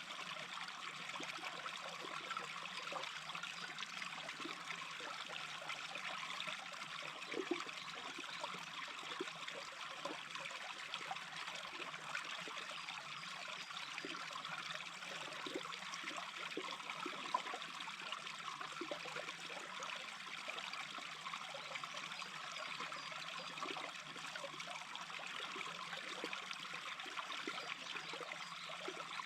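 A small brook babbling steadily, with short watery blips scattered through the flow.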